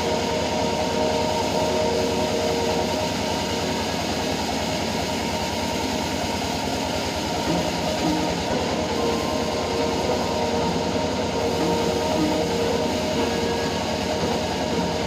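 Sawmill machinery running steadily: a continuous mechanical hum with a fast, even low pulsing.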